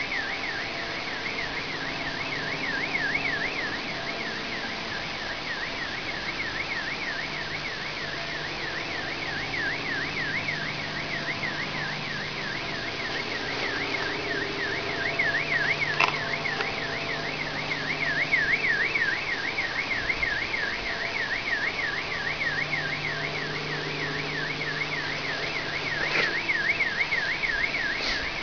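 Car alarm siren sounding continuously with a fast up-and-down warble several times a second. Under it is a low droning hum and hiss, the background noise that the uploader likens to an airplane motor.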